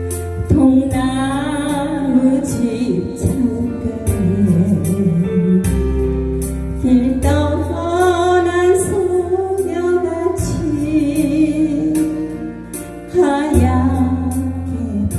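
Korean song with a band backing track: a female voice sings a melody with vibrato over steady bass and accompaniment.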